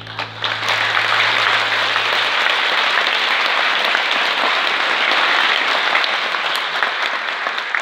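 Concert audience applauding steadily after a song, rising to full strength within the first second. The last low note of the band's final chord rings on under the clapping for about two seconds, then dies away.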